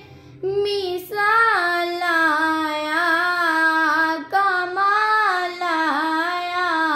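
A girl singing an Urdu naat unaccompanied. She holds long notes that bend and glide in pitch, with short pauses for breath near the start and about four seconds in.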